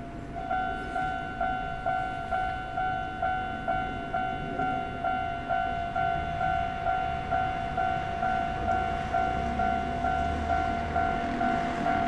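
Railway level-crossing warning bell on the Hankyu Kyoto Line starting to ring about half a second in, an electronic ding repeated steadily at about two strikes a second: the crossing has been triggered by an approaching train.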